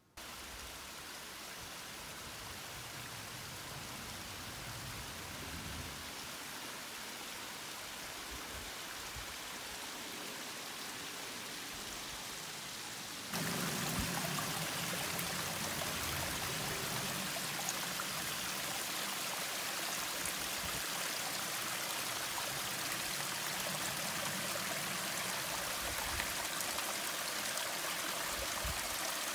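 Steady rush of running water that suddenly gets louder about halfway through, as water runs over the wet rocks of a stream bed.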